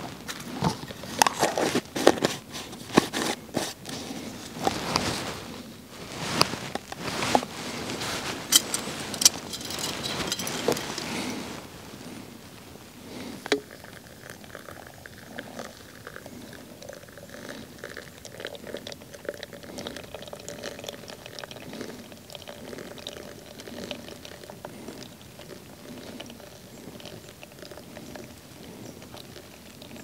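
Ground coffee spooned from a metal tin into a stainless steel pour-over filter on a mug, with spoon clicks and scrapes. From about 13 seconds in, hot water is poured in a thin steady stream from a metal camp kettle into the filter.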